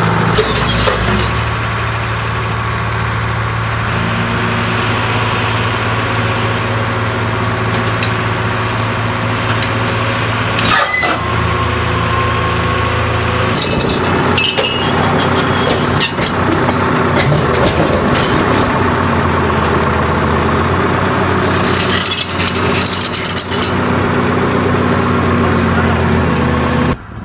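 Heavy equipment engine running steadily under work, its note shifting several times, with sharp metal clanks and knocks a little before halfway, in a run just after halfway and again later.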